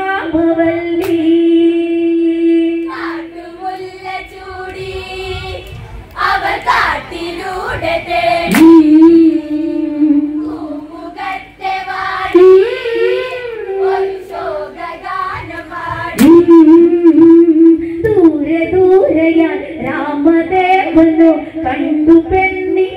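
Women and girls singing an Onamkali song together in Malayalam, with no instruments, their voices held on long, wavering notes phrase after phrase.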